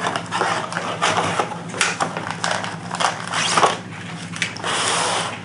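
Cardboard box flaps being opened and a folded paper insert handled and pulled out: a run of irregular scrapes and crinkles, with a longer steady rustle near the end.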